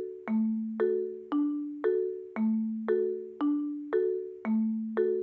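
Background music: an even run of struck, ringing notes, about two a second, alternating between a lower and a higher pitch, each fading before the next.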